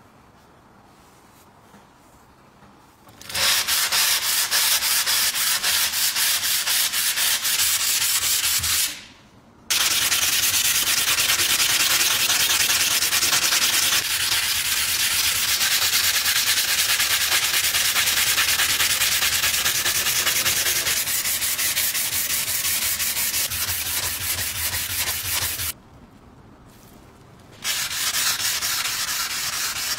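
Rapid back-and-forth hand sanding of a rusty steel bread-cutter blade. It starts about three seconds in and runs in three long stretches, with brief pauses near nine seconds and near the end.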